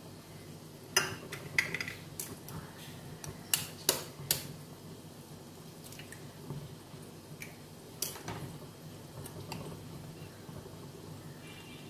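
Scattered sharp clinks of a small steel bowl and pan as eggs are cracked into the bowl and slid one by one into simmering gravy. Most of the clinks fall in the first few seconds and a couple more come about two-thirds through, over a faint low hum.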